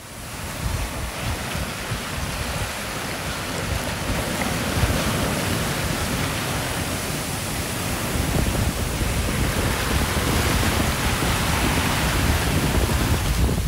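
Wind buffeting the microphone and waves rushing and washing past the hull of a sailboat under sail in rough seas. The noise is steady, getting a little louder after about eight seconds.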